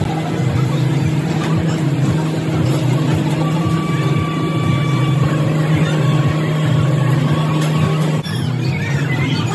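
A loud, steady, low machine-like drone, with faint steady higher tones over it; the sound briefly dips and changes about eight seconds in.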